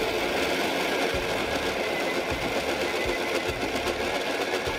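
Kitchen robot blender running steadily at speed, its motor whining as it purees cooked cauliflower with milk and yogurt into a smooth soup.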